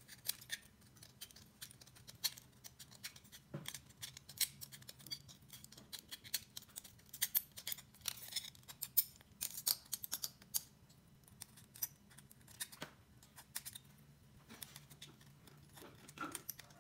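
Scissors cutting through the thin aluminium wall of a drink can: a quick, irregular run of small snips and metallic clicks as the blades work around the can's rim.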